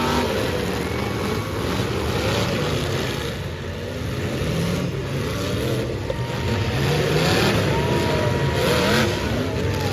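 Several demolition derby car engines running at once, revving up and down unevenly.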